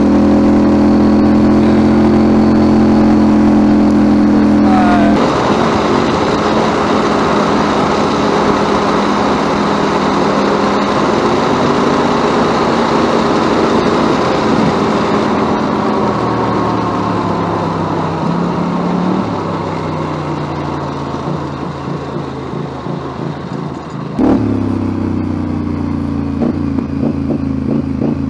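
Stock 224 cc single-cylinder go-kart engine running flat out at wide-open throttle during a speed run, with a steady rushing noise over it from about five seconds in. Later the engine note falls as the kart slows, then about 24 seconds in it jumps suddenly to a louder engine sound.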